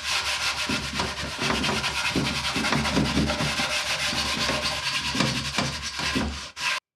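Cloth rubbing Danish oil into a wooden crate in quick back-and-forth strokes. It cuts off abruptly near the end.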